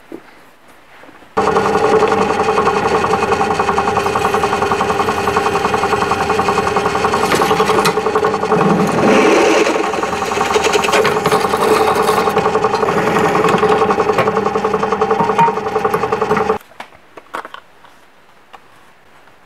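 Drill press running and drilling through a thin metal plate: a steady motor hum with several even tones, starting suddenly about a second and a half in and cutting off suddenly near the end.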